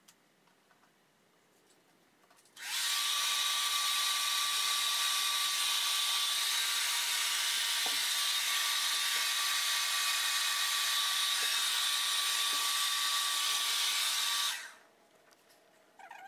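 Hair dryer blowing air across wet acrylic paint to push it over the canvas, running steadily with a constant whine. It switches on about three seconds in and cuts off about two seconds before the end.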